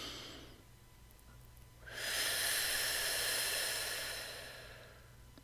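A person breathing deeply: the tail of one breath at the start, then a long, slow breath of about three seconds that fades out gradually.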